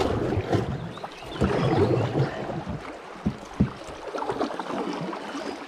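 Canoe paddle strokes dragging and splashing through fast river current, with water rushing around the canoe. Two sharp knocks a little past halfway.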